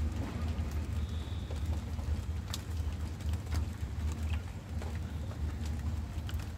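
Rain falling, with scattered sharp drop clicks over a steady low rumble.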